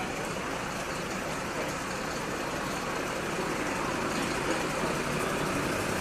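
Steady outdoor street noise with a vehicle engine running at idle, growing slightly louder toward the end.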